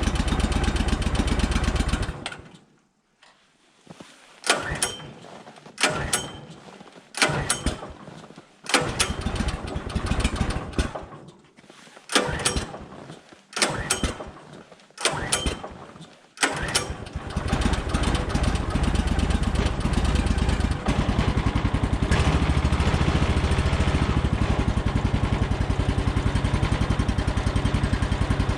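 Woodland Mills HM126 sawmill's gasoline engine cold-starting after a night at about −21 °C: it runs briefly and dies, then fires and dies again on about eight tries roughly every one and a half seconds, before catching about seventeen seconds in and settling into a steady run.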